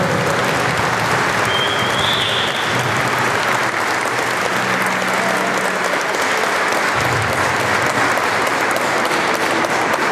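Large crowd clapping hands steadily, with faint voices underneath.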